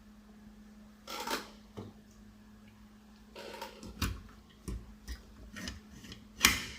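Handling noise from a die-cast scale model truck and trailer: scattered small knocks, clicks and short rubbing scrapes as the metal and plastic parts are moved about on a surface. The two loudest scrapes come about a second in and near the end, over a faint steady hum.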